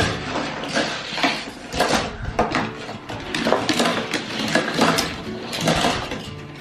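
Die-cast Hot Wheels toy cars clattering and clinking against each other as they are handled, in a quick irregular run of small knocks.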